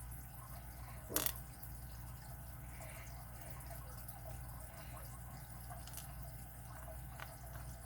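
A sharp click about a second in, then a couple of fainter ticks, over a low steady hum: small metal padlock parts, the pins and springs, being handled as the lock's pin stacks are taken out.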